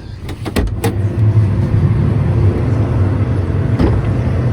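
Combine harvester's diesel engine running with a steady low hum, coming up louder about half a second in after a few sharp clicks, heard from inside the cab.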